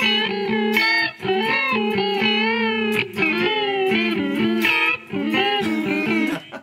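Electric guitar played through an Old Blood Noise Endeavors Reflector chorus pedal on its Wrinkle setting: a series of ringing notes that warble in pitch, a pitch-shifted vibrato blended with the steadier dry signal. The playing stops near the end.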